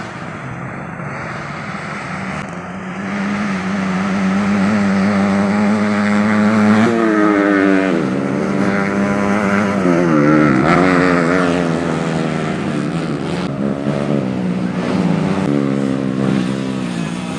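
Modified underbone race motorcycles revving hard and passing by, several engines at once, their pitch dropping and climbing as they go past; loudest about midway through.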